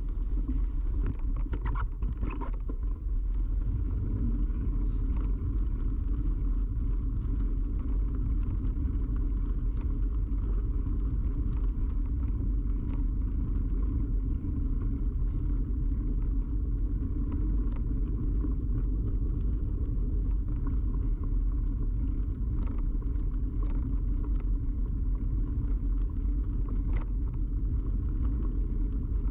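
Steady low rumble of a bicycle in motion, picked up by a camera mounted on the bike: tyre and frame vibration carried through the mount, with a few faint clicks and rattles in the first few seconds and now and then after.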